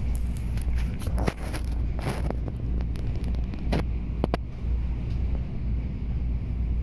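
Airport Express train carriage in motion: a steady low rumble, with a few short sharp clicks and knocks.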